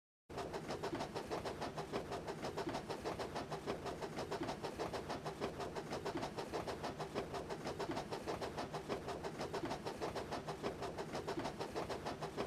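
A train running with a quick, even, rhythmic chugging beat, fairly quiet, starting just after a moment of dead silence.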